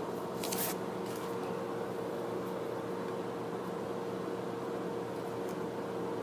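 A paper sticker sheet rustles briefly as it is handled and peeled, about half a second in and again at about one second, with a few faint ticks later. Under it runs a steady background hum.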